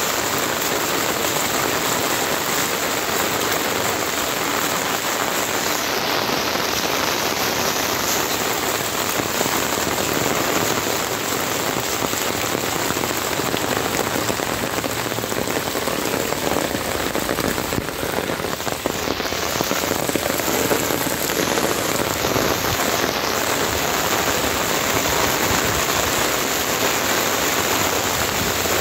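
Heavy rain pouring steadily onto a flooded road, a dense even hiss of drops splashing into standing water.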